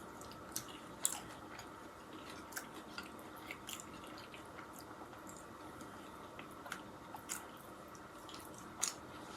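Faint close-up chewing of food, with scattered soft wet mouth clicks.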